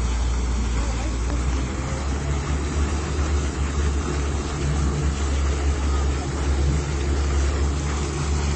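Yamaha outboard motor running steadily in gear, a constant low rumble with churning prop wash.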